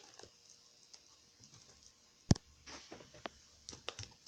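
Handling of a puzzle's cardboard box: one sharp tap a little over two seconds in, then a scatter of lighter clicks and taps near the end.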